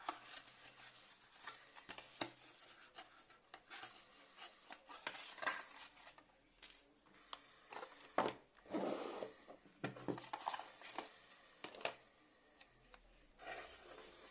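Cardboard phone packaging handled and unpacked by hand: rubbing and rustling of card and paper with scattered light clicks and taps on a wooden desk. The loudest moment is a sharp knock followed by a longer rustle about eight seconds in.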